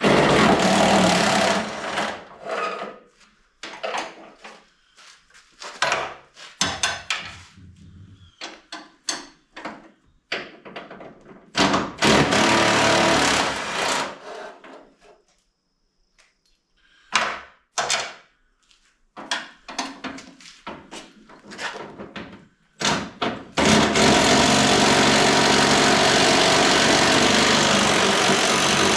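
A power tool run in short bursts on rusted truck body bolts, with one longer run of about five seconds near the end, and clanks and knocks of tools and metal parts in between.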